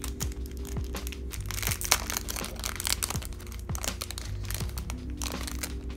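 Background music with a steady low beat, over the crinkling of small clear plastic bags being handled and opened as enamel pins are unpacked; the crinkling comes in two stretches, about two seconds in and again near the end.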